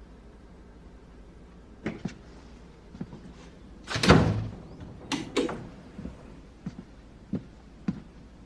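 A door shutting with a loud thud about four seconds in, with clicks before and after it, then a string of light taps about every two-thirds of a second.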